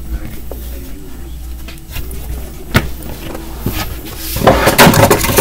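Handling noise close to the microphone, over a steady low hum. There is one sharp click a little under three seconds in, then a burst of rustling and knocking near the end.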